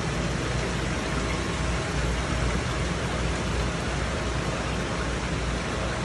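Steady splashing and bubbling of water in a fish-rearing tank, its surface churned by aeration and inflowing water, over a low steady hum.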